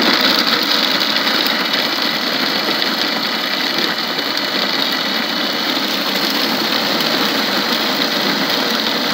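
Electric food processor running at speed, its blade chopping onions and green chillies in the bowl; a loud, steady motor noise.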